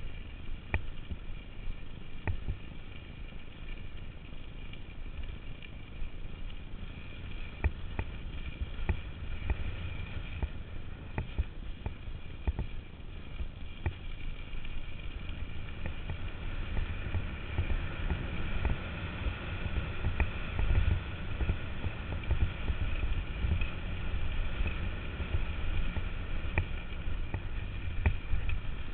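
Bicycle riding over a rough path: low wind rumble on the microphone and tyre noise, with scattered rattling clicks from the bike over bumps. The rumble gets louder in the second half as the path turns to dirt and gravel.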